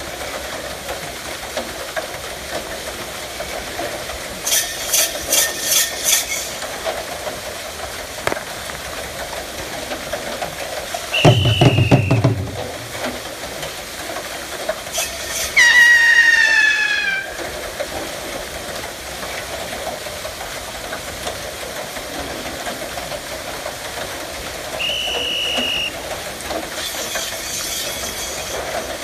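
Bullock-driven Persian wheel well turning, a steady rushing hiss with an even hum. A few short high tones break in, one of them sliding downward about halfway through.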